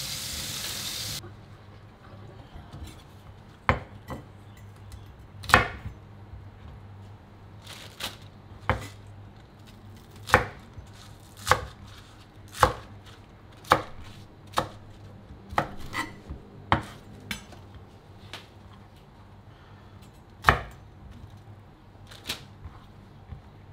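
Chef's knife chopping green onions and celery on a bamboo cutting board: single sharp knocks of the blade on the wood, unevenly spaced about a second apart. A running tap stops about a second in.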